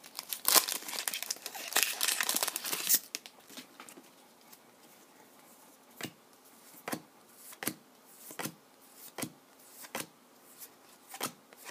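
A trading-card pack's shiny wrapper crinkling and tearing open for about three seconds. Then comes a steady run of soft clicks, one about every second, as cards are slid one by one off the front of a stack of chrome cards.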